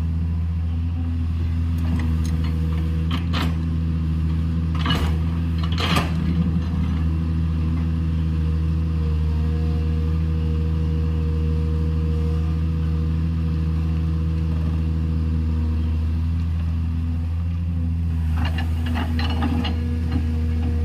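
JCB 210LC tracked excavator's diesel engine running steadily under working load. A few sharp knocks and clatters of rock and earth come about three to six seconds in and again near the end.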